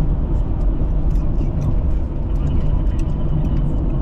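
Car on the move: a steady low rumble of road and engine noise, with small scattered ticks.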